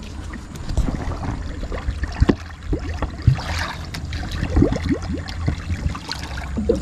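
Water gurgling and trickling into a fishing-float bottle as it is filled, with short bubbling notes that rise in pitch; the water is ballast for the tuntang float.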